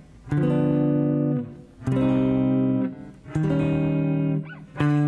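Clean electric guitar striking single chords from the closing bars of a C-minor blues, one chord per beat: G7 over D, C minor, E-flat 7, then D7. The first three each ring about a second and are muted before the next; the D7, struck near the end, rings on.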